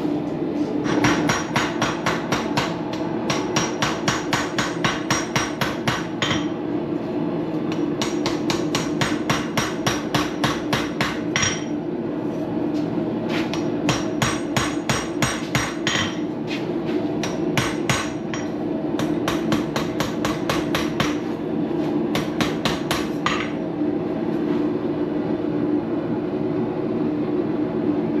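Hammer blows forging a Damascus steel knife blade at the anvil: four runs of rapid, ringing strikes, the last ending a few seconds before the end. A steady hum runs underneath throughout.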